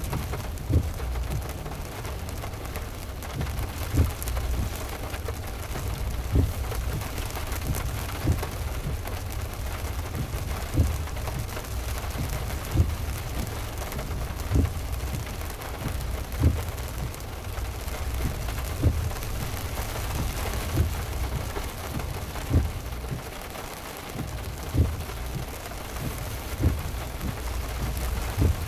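Heavy rain falling on a moving car, heard as a steady hiss over a low road rumble, with the windshield wipers giving a low thump about every two seconds.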